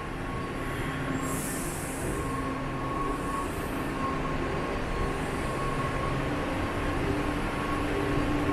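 Washington Metro train running between stations, heard from inside the car: a steady rumble of wheels on rail with a thin, high whine, and a brief hiss about a second in.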